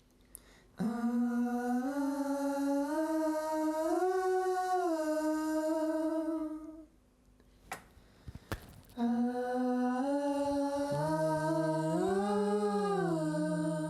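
Recorded wordless vocal harmony takes played back: one voice holds long notes that step up and then back down, stopping about seven seconds in. After a couple of clicks the line plays again, and a second, lower voice joins in harmony partway through.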